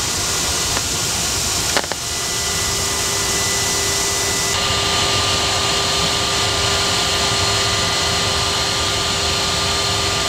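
Cockpit noise of an HU-25C Falcon jet: a steady rush of air and turbofan engines with thin steady whine tones over it. There is a sharp click about two seconds in, and the hiss shifts higher about four and a half seconds in.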